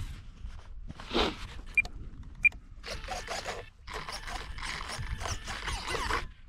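Handling noise as a foam RC plane is picked up and moved: irregular rustling and scraping, over a steady low rumble of wind on the microphone. Two short high electronic beeps come under a second apart, about two seconds in.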